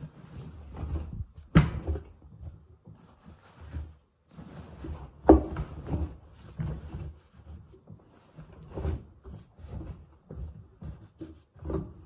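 Clothes being loaded by hand into a front-loading washing machine's drum: fabric rustling and thudding into the drum, with two sharp knocks, one about one and a half seconds in and the louder about five seconds in.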